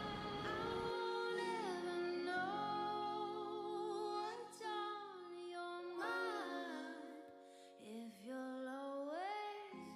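Background music: a song with a singer holding long notes that slide up and down in pitch.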